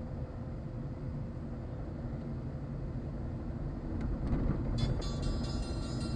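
Steady low rumble of a car's engine and tyres heard from inside the moving car. About five seconds in, a cluster of steady higher-pitched tones joins it.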